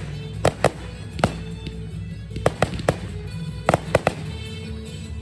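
Aerial fireworks bursting overhead, about nine sharp bangs coming in quick clusters of two or three, over steady music.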